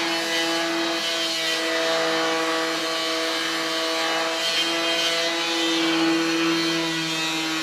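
A power tool's motor running steadily, a constant hum over an even hiss, while wood finishing work is being done.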